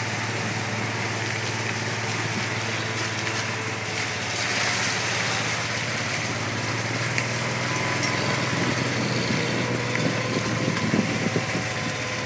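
Small vehicle engine running steadily, heard from on board, with the rattle of the ride and a few knocks near the end.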